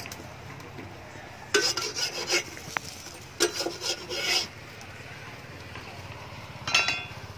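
Metal spatula scraping across a wok twice, about a second each, working a crispy crepe loose from the pan, then a short ringing metal clink near the end.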